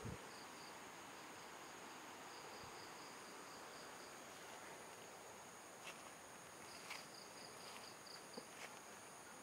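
Faint chorus of crickets and other night insects: a steady high-pitched trill with trains of rapid pulsed chirps. A few soft clicks come in the second half.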